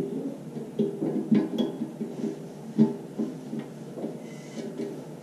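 Several light knocks and taps on a stainless steel tank lid, each leaving a short metallic ring.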